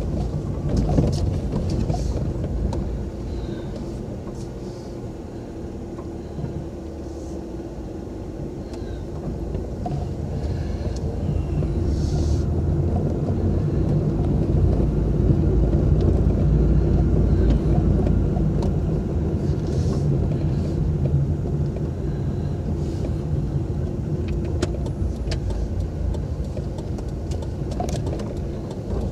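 Car engine running and tyres on the road, heard from inside the cabin while driving slowly: a steady low rumble that grows louder in the middle, with a few light clicks.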